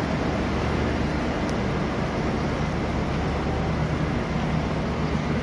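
Steady low mechanical drone with a continuous hum, echoing in an enclosed concrete loading dock.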